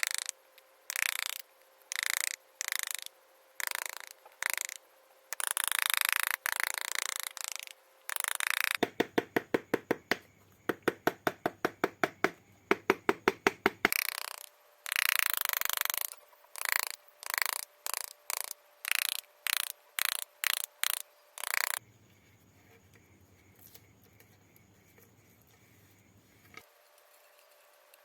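Wood-carving chisel cutting and scraping into wood in short strokes, one or two a second. In the middle comes a stretch of sharp, quick, regular taps, about four a second. The strokes stop about two-thirds of the way through.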